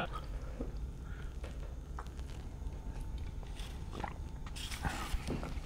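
Low steady room hum with a few faint clicks and soft handling noises of shot glasses and a beer can as two people drink shots.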